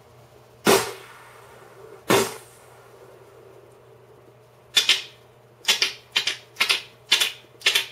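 Vocal, mouth-made gunshot sound effects. Two sharp shots with a short hissing tail come about a second apart, then a quick run of clicks imitating a pistol being cocked.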